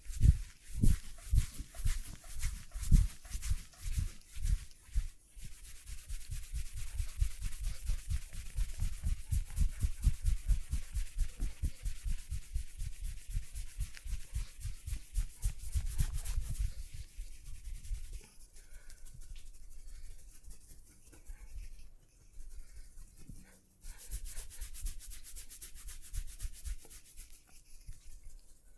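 Massage: hands rubbing and patting a person's body in rhythmic strokes. A few slower pats come first, then a run of quick, even strokes. After about eighteen seconds it eases to softer rubbing.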